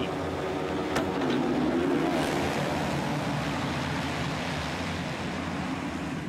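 A full field of 450cc four-stroke motocross bikes launching off the start at full throttle. A sharp clack about a second in, as the starting gate drops, is followed by a rising rev and then a dense wall of engine noise from the pack.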